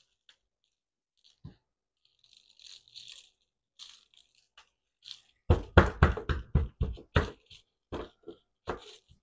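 Black-gloved hands patting dry rub onto a raw meatloaf. At first there are faint rustles, then from about halfway through comes a quick run of soft slaps, about five a second, which thin out near the end.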